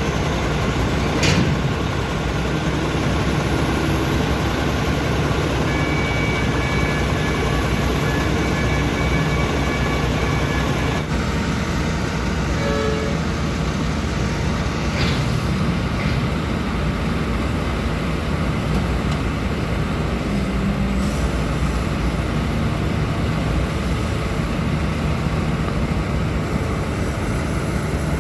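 Lovol FR220D crawler excavator's diesel engine running steadily under work, with two sharp knocks, one about a second in and one midway.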